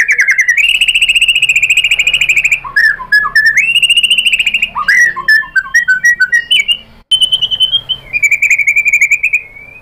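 White-rumped shama (murai batu) singing its energetic 'fighter' song: long, very fast rattling trills held on one pitch, broken by a run of quick varied notes in the middle, with a brief pause about seven seconds in.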